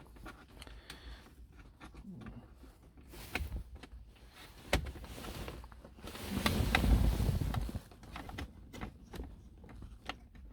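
Scattered clicks and knocks of hands working a wiring connector on the shift module to plug it back in, with a louder low rustling rumble about six to eight seconds in.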